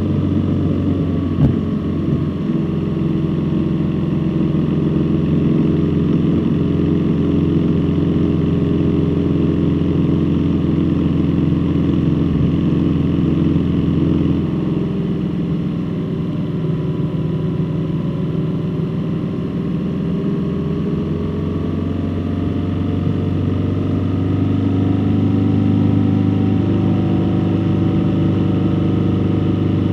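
Motor vehicle engine running steadily on the road, its pitch easing down partway through and rising again toward the end, with one brief knock about a second and a half in.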